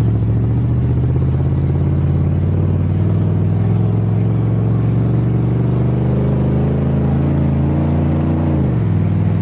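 A 1988 Chevrolet pickup's engine pulling under way, heard from inside the cab. It holds steady, climbs slowly in pitch for a few seconds, then drops suddenly near the end as the transmission upshifts.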